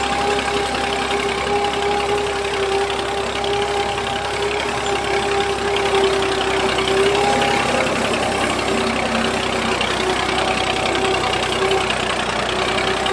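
Small electric motor of a battery-powered toy vehicle running with a steady whine, faltering briefly about halfway through.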